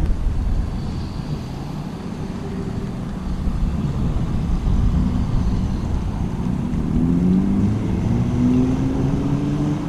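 A road vehicle's engine pulling away, its pitch rising over the last few seconds, over wind rumbling on the microphone.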